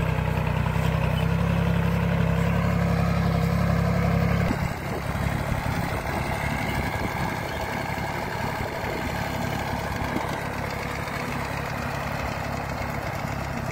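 Mini tractor's engine running steadily as it drives a pesticide sprayer. About four and a half seconds in, the sound changes abruptly and the deep low rumble drops away, leaving a rougher, thinner engine sound.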